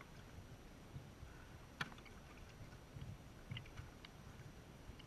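Faint water lapping and sloshing against a kayak's hull as it is paddled, with soft low thuds and one sharp click a little under two seconds in.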